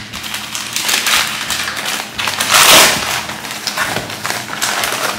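Brown kraft-paper mailer being torn open and crinkled by hand, with the loudest tearing about halfway through.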